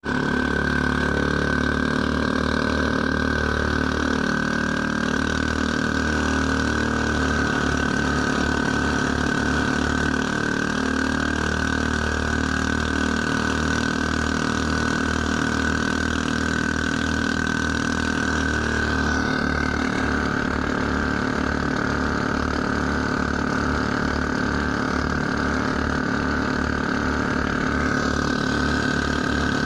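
The twin engines of a Philippine outrigger pump boat running steadily at speed, a constant engine drone with a pulsing low beat and a steady high whine, over water rushing past the hull.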